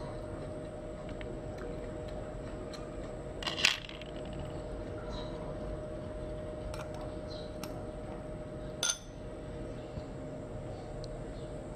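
Small hard clinks and taps, the two loudest about three and a half and nine seconds in, the second ringing briefly, over a steady background hum.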